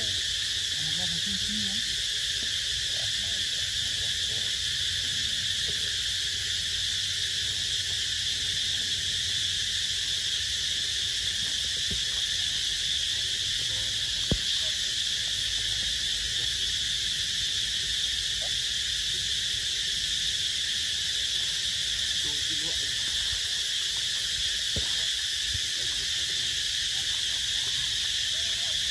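Steady insect chorus, an even high-pitched drone that doesn't change, with a single sharp click about halfway through.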